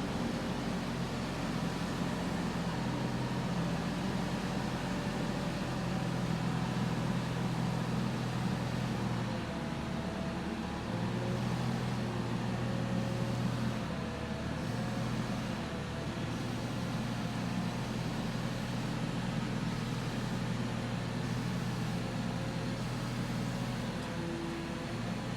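Heavy vehicle's engine running steadily, its speed shifting a few times.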